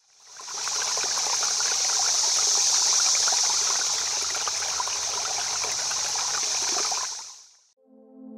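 Running water trickling, fading in over the first second and fading out about seven seconds in. A guitar begins to play near the end.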